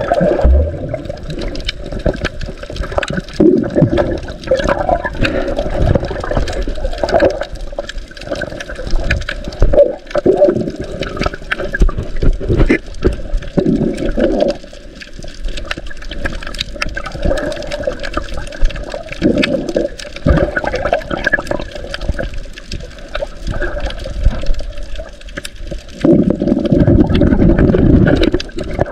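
Water rushing and gurgling around a submerged camera, heard underwater, in irregular muffled surges as the swimmer moves over the reef. Faint scattered clicks run through it, and a longer, louder surge comes near the end.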